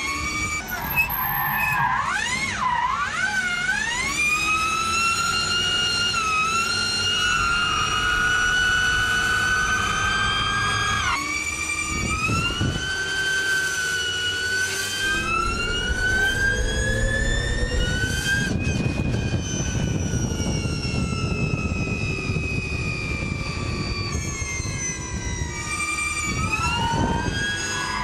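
High-pitched whine of the Ford Mustang Mach-E 1400's seven electric motors, climbing steadily in pitch as the car accelerates and dropping sharply several times when it lets off, over a low rumble of tyre noise.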